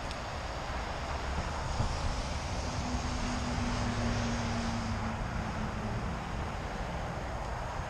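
Wind rumbling on the microphone over a steady rushing hiss, with a faint distant engine drone rising out of it for a few seconds in the middle.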